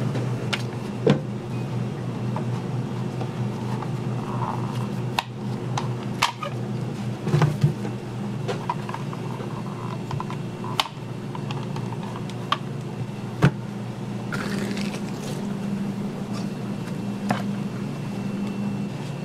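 A knife cutting through a block of ham on a plastic cutting board, with a few sharp taps as the blade hits the board, over a steady low hum.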